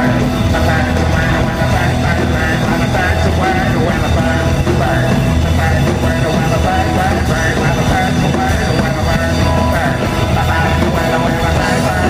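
Live rock band playing: electric guitars and drums with a lead vocal, heard from among the audience.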